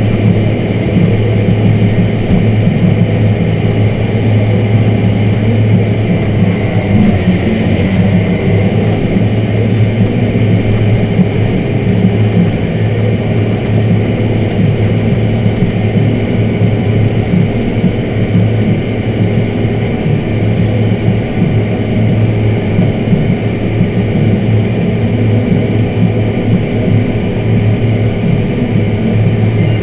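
Large tractor's diesel engine running steadily as it pulls a dirt pan, heard from inside the cab with a strong low drone.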